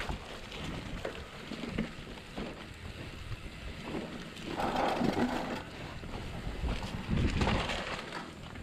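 Wind buffeting the microphone over the rattle and knocks of a mountain bike ridden along a dirt trail, with a louder gust of noise about halfway through and a low rumble near the end.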